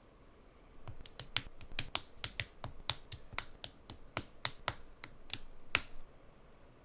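LEGO plastic bricks clicking and clattering as they are handled and fitted: a quick, irregular run of crisp clicks, about four a second, that stops near the end.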